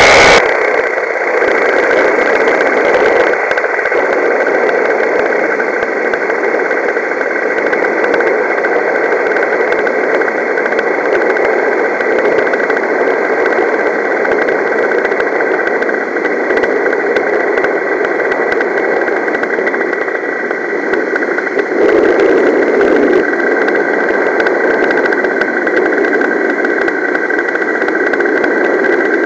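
Paramotor's two-stroke engine and propeller running steadily in flight, a constant drone with a high tone on top, briefly swelling about two-thirds of the way through.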